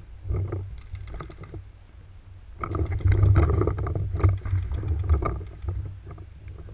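Low rumbling and rustling on a head-mounted action camera's microphone as the wearer moves, louder from about two and a half seconds in to about five and a half.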